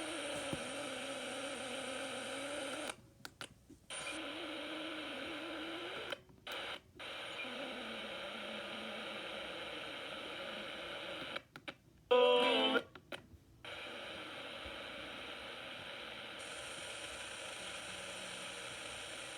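WR400 radio tuned to 87.5 FM, giving steady static with faint wavering squealing tones. The sound cuts out briefly several times. About 12 seconds in there is a short, loud squeal of several stacked pitches.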